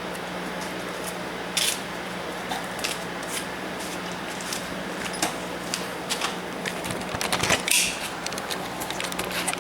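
Scattered light clicks and clinks of hand-tool and parts work, busiest about three-quarters of the way through, over a steady low hum.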